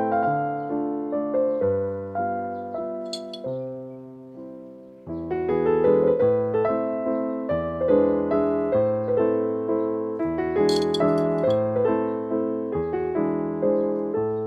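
Background piano music: a gentle melody over low bass notes, dying away about five seconds in before a new phrase starts.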